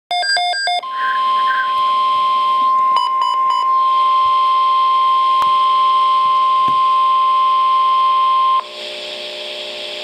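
NOAA Weather Radio's 1050 Hz warning alarm tone, the signal that precedes a Tornado Watch broadcast, sounding steadily through a Midland WR-100 weather radio's speaker for about eight seconds and cutting off abruptly, leaving radio hiss. A quick run of electronic beeps opens it, and a few more beeps cut in about three seconds in.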